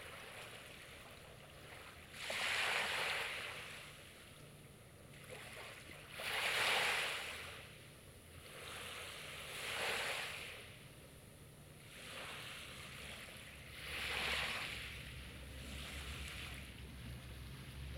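Sea waves breaking and washing up the beach, four surges a few seconds apart, each swelling and then fading back.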